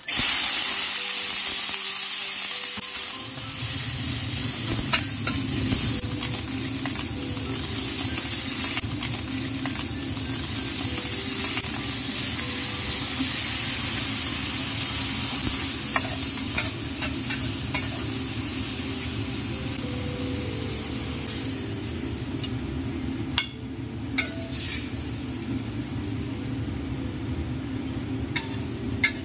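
Hot oil in a black iron wok sizzles loudly the moment chopped green chilies and scallion go in, then keeps up a steady frying hiss as sliced ham sausage is stir-fried. A metal spatula scrapes and clicks against the wok now and then, and a low steady hum joins about three seconds in.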